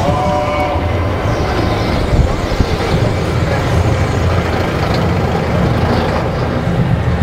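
Expedition Everest roller coaster train rolling along its steel track just past the top of the lift hill: a steady low rumble of the wheels and running gear.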